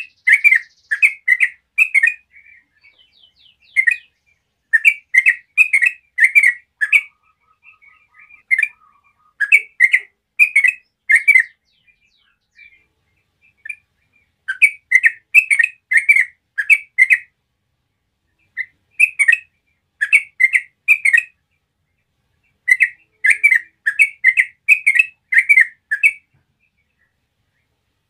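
A bird chirping in repeated phrases of several quick notes, about two a second, with short pauses between phrases.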